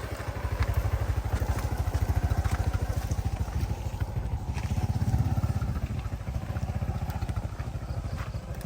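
Honda XRM motorcycle's single-cylinder four-stroke engine running at low speed under load, its exhaust pipe holed on top; the engine note swells about two seconds in and again about five seconds in, with scattered light knocks as the bike goes over ruts and rocks.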